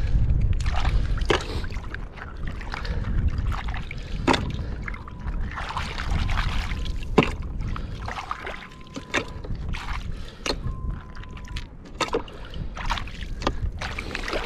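A hand sloshing and raking through wet sand and shallow seawater while gathering cockles, with splashing and several sharp clicks of cockle shells knocking together. Wind rumbles on the microphone underneath.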